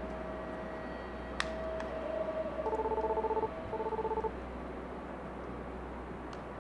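Electronic beeps in two short runs of rapid pulses, like telephone keypad tones, over a low steady hum. A single sharp click comes a little over a second in.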